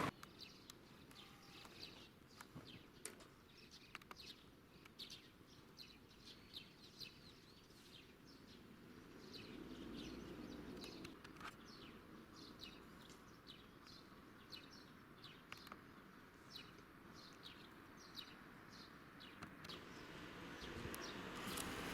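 Faint, scattered chirping of small birds, many short calls in quick succession, over a quiet background with a faint low rumble swelling up around the middle.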